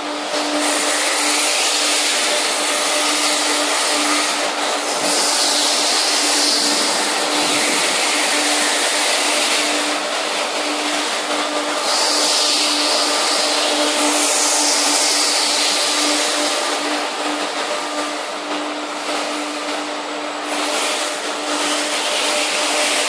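A double steel belt cooling line running: a steady hum at one constant pitch under a loud, even hiss that swells and eases every few seconds.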